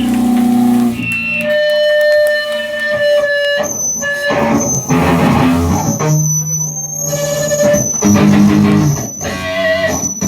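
Electric guitar through an amplifier: single held notes and loosely plucked strings rather than a full song, with a thin high tone coming and going in the second half.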